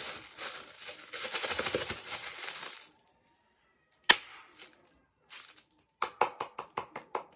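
Clear plastic packaging crinkling and rustling in the hands for about three seconds. Then comes a single sharp click, and near the end a quick run of about eight sharp taps.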